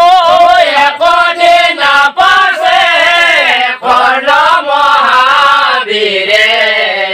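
A group of men singing Nagara Naam, Assamese devotional folk chant, together in chorus. The sung phrases rise and fall and settle into a long held note near the end.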